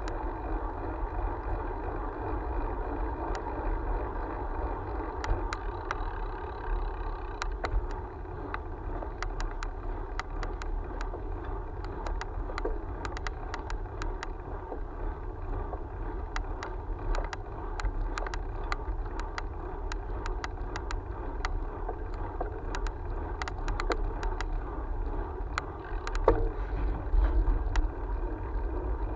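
Steady rolling road noise and wind rush picked up by a camera mounted on a moving vehicle on asphalt. Many small irregular clicks and rattles run through it, with a louder burst of knocks near the end, typical of the mount jolting over bumps.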